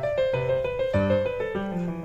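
Background piano music: a melody of separate struck notes, with a falling run of notes in the middle.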